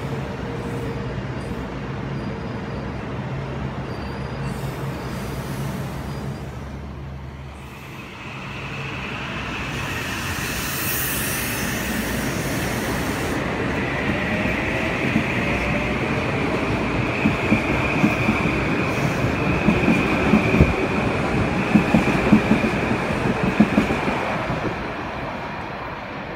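Metro-North M8 electric multiple-unit train pulling out and picking up speed, its steady hum giving way to a rising electric motor whine. Its wheels click over the rail joints in a quickening run as it goes by, then fade near the end.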